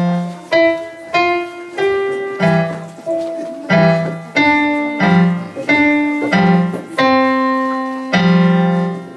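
Electronic keyboard playing in a piano voice: a slow melody of struck notes, each fading away, over low bass notes. It ends on a long held chord near the end.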